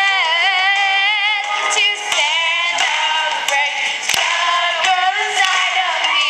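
Girls singing a pop song together over backing music, holding wavering notes. The sound is thin, with little bass.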